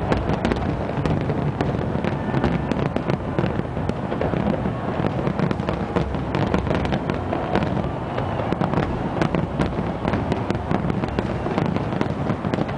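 Fireworks display with aerial shells bursting overhead: a continuous low rumble of overlapping bangs, with many sharp pops and crackles following closely on one another.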